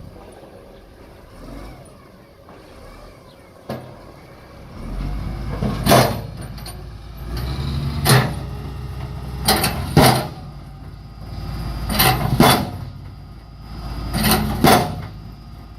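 Heavy road-paving machinery running with a low engine rumble, broken by loud sharp bangs about every two seconds, sometimes two close together.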